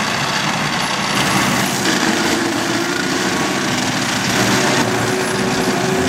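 Tractor-driven PTO brush mulcher running steadily under load: the tractor engine and the spinning mulching rotor make one dense, even mechanical noise.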